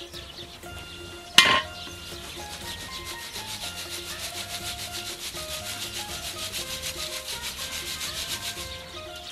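Wire-mesh strainer shaken in a quick, steady rhythm, the dry-fried pieces of beef liver rubbing and rattling against the mesh as straw ash sifts out. A single sharp knock comes about a second and a half in.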